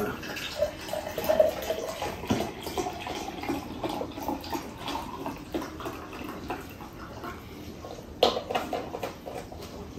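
Iced tea poured from a carton into a glass mug, a steady stream of liquid filling the glass, with a short knock about eight seconds in.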